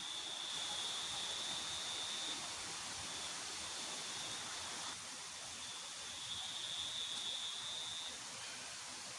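Steady rush of river water, with an insect's high-pitched trill that swells twice and fades back.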